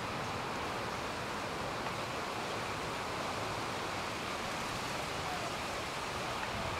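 Steady, even wash of ocean surf breaking on a sandy beach.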